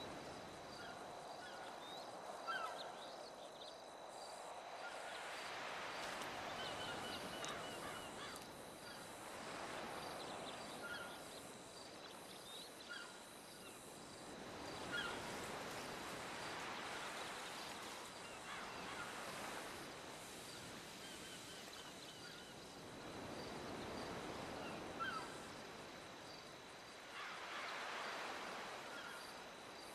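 Outdoor ambience: a rushing hiss that swells and fades every few seconds, with faint short chirps and a few sharp clicks.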